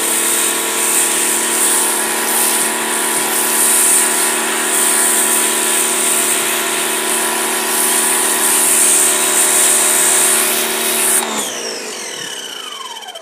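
Huter electric pressure washer running under load, its motor and pump giving a steady hum while the snow foam lance sprays with a hiss. About eleven seconds in the spray stops and the motor winds down with a falling whine.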